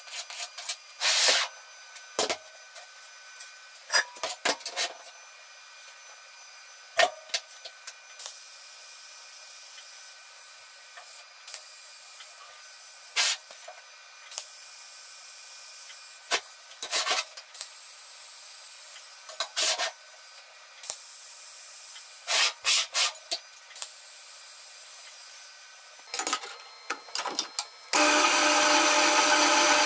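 Scribe scratching and small steel tools clicking on a steel sheet. Then a thin steady hiss from a TIG welding arc, stopping and starting several times with sharp clicks in between. About two seconds before the end a horizontal metal-cutting bandsaw starts cutting steel, a loud steady running sound that is the loudest thing here.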